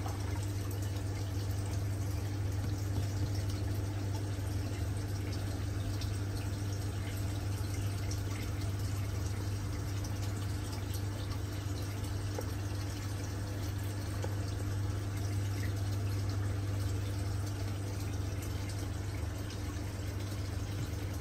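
Aquarium pump and filter running: a steady low hum with water trickling and faint scattered bubbling ticks.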